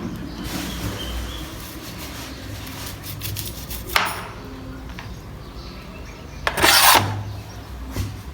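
Kitchen things being handled on a work surface: a sharp knock about four seconds in, a louder, brief scraping clatter near seven seconds, and a smaller knock just after.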